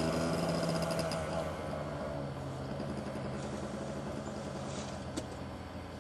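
Yamaha Blaster quad's two-stroke single-cylinder engine running at a steady pitch as the quad rides off, growing fainter as it moves away.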